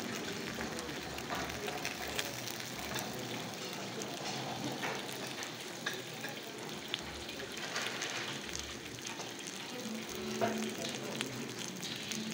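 Takoyaki frying in the cups of a takoyaki griddle: a steady sizzle, with scattered light clicks as a wooden skewer turns the balls.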